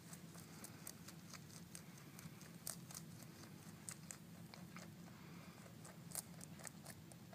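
Pet rabbit chewing leafy greens: faint, irregular crisp crunching clicks, over a low steady hum.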